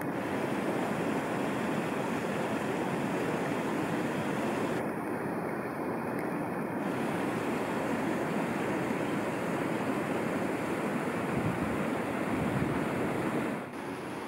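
Steady rushing outdoor noise, like wind and moving water, with no voices; it drops suddenly in level near the end.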